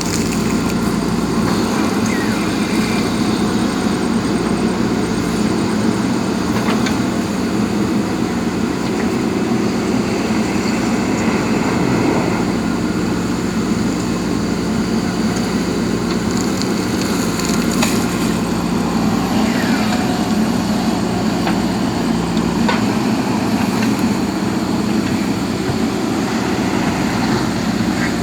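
JCB backhoe loader's diesel engine running steadily while working, with a few brief knocks.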